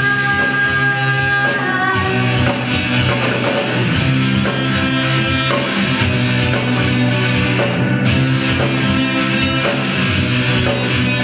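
Rock band playing live through an instrumental passage: guitars and bass holding sustained chords over drums keeping a fast, steady beat.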